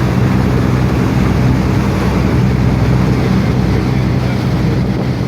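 Motorboat engine running steadily under way, a low even drone under a constant rush of water and wind noise.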